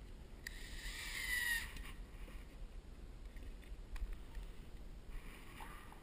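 Porter-Cable cordless drill/driver motor whirring in a short run, rising in pitch, as it drives a screw up into the drywall ceiling, then a fainter second run near the end. A sharp click about four seconds in.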